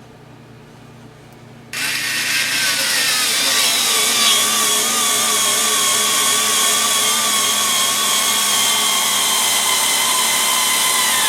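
Skil 4-volt cordless electric screwdriver starting about two seconds in and running steadily, its small motor and gearbox whining under load as it drives a short cabinet screw into wood; the pitch sags a little as it bites in, then holds.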